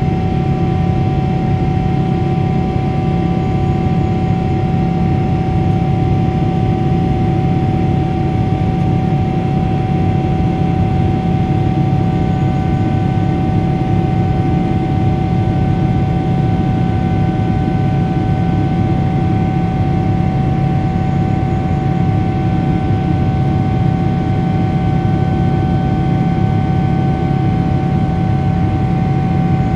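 Boeing 777-300ER's GE90-115B turbofan heard from inside the cabin during the climb after takeoff: a loud, steady drone with a deep rumble and a steady whine on top.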